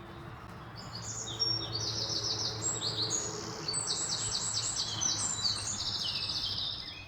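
Small songbirds singing, several overlapping songs of quick repeated high chirps and trills, over a steady low background rumble.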